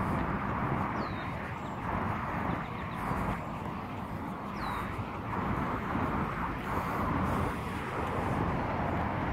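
Steady outdoor roar of distant noise over a low rumble, with two short falling chirps from a bird, one about a second in and one near the middle.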